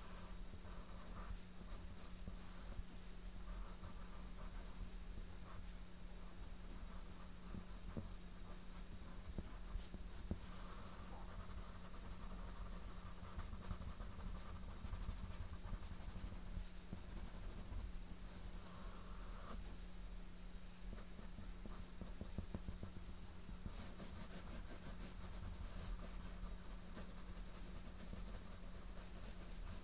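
Graphite pencil scratching on drawing paper in runs of quick short strokes as it hatches shading. A steady low hum runs underneath.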